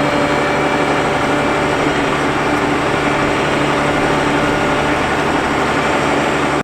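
Heavy diesel engine of harvest machinery running steadily: an even, dense drone with several steady hums. It cuts off abruptly at the end.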